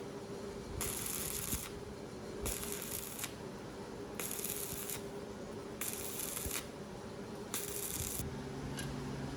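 Five even scraping strokes, each under a second and about one and a half seconds apart, like a hand tool worked back and forth, over a faint steady hum.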